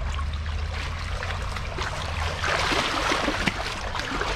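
Water trickling in a shallow creek, then splashing and sloshing harder from about halfway through as the water is stirred up to drive hiding fish out of their holes.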